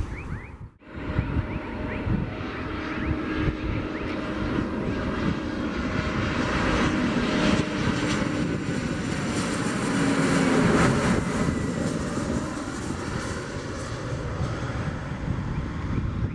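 Embraer E195 airliner on landing approach flying past: the steady rush and hum of its turbofan engines, building to a peak about ten seconds in and easing slightly after, with a low hum that sinks a little in pitch as it passes. A sudden break about a second in, where the sound cuts out briefly.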